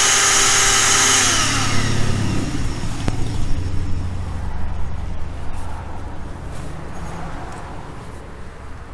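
Wet/dry shop vacuum running with a steady whine, switched off about a second in; its pitch falls as the motor winds down over the next couple of seconds. Low street-traffic rumble and light knocks follow.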